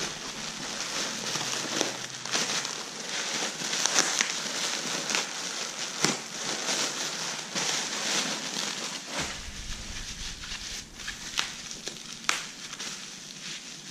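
Plastic bubble wrap crinkling and crackling as it is handled and pulled open by hand, a continuous rustle broken by many small sharp crackles, with paper packing rustling along with it.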